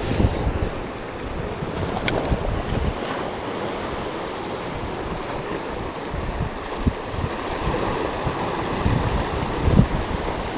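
Sea waves washing and breaking against rocks, with wind buffeting the microphone in gusts. A single sharp click sounds about two seconds in.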